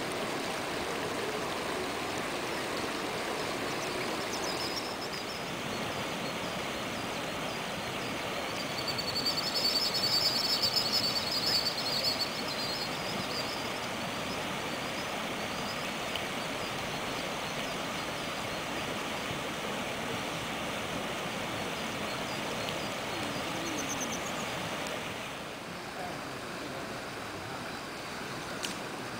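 Azusa River water rushing steadily over its gravel bed, with a small bird chirping rapidly and high, loudest about a third of the way in. The rushing gets quieter near the end.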